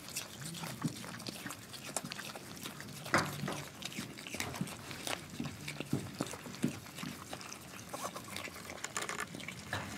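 Young Virginia opossums chewing and smacking wetly as they eat from a food dish: a steady run of irregular short clicks and smacks, the loudest a little after three seconds in.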